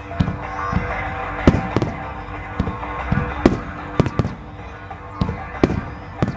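Fireworks shells bursting in quick succession, about a dozen sharp bangs a fraction of a second to a second apart, with music playing underneath.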